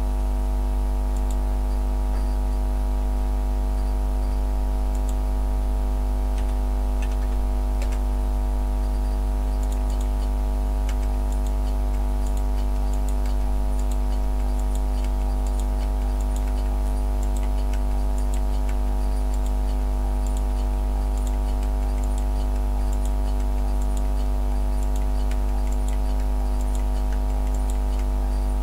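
A truck engine running steadily, heard as a constant low drone with a stack of even tones that never change in pitch. Faint, scattered light ticks sit on top.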